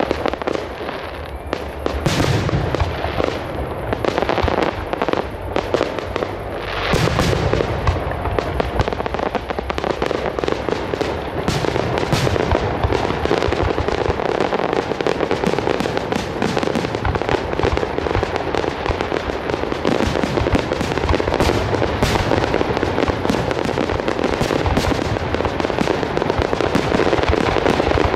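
Fireworks display: aerial shells bursting, with heavy bangs about two and seven seconds in, then a dense run of rapid bangs and crackling.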